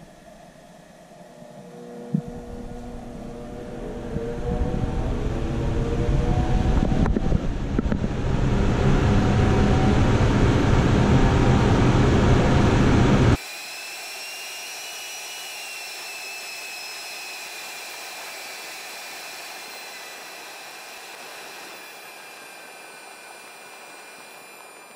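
Minneapolis blower door fan starting about two seconds in and spinning up, its whine rising in pitch as the automatic controller ramps it toward the test pressure for a depressurization test. About halfway through the level drops suddenly, and the fan runs on with a steadier high whine.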